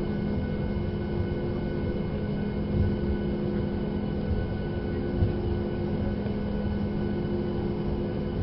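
Boeing 737 MAX 8 cabin noise while taxiing: the steady whine and hum of the CFM LEAP-1B engines at low power over a low rumble from the wheels, with a couple of light bumps.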